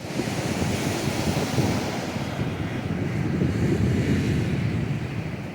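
Ocean surf washing onto a beach, with wind buffeting the microphone; the hiss of the wash is strongest in the first couple of seconds, then eases.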